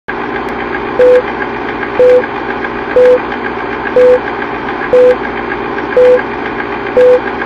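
Film countdown leader sound effect: a steady film-projector whirr and clatter with a short beep once a second.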